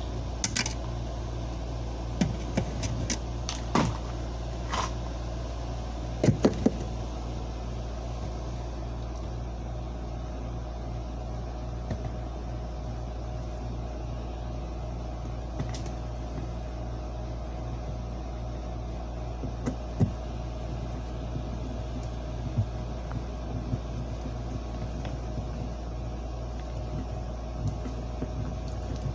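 Small clicks and taps of a screw and hand screwdriver being handled against model railroad track, several close together in the first seven seconds and only a few after, over a steady low hum.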